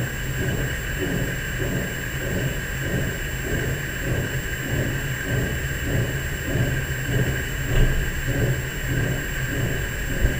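A steady low drone with steady higher tones above it and a throbbing pulse about twice a second underneath: an unexplained night-time hum of unknown source.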